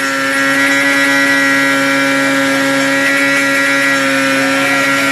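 Car engine running with no oil, held at steady high revs with an unchanging pitch while it is run to destruction.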